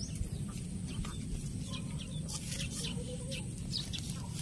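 Short, scattered bird calls over a low steady rumble.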